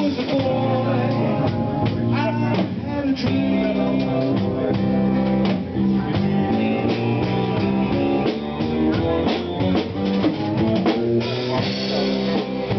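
Live band playing an instrumental passage: drum kit keeping the beat under guitar and other pitched instruments, at a steady level.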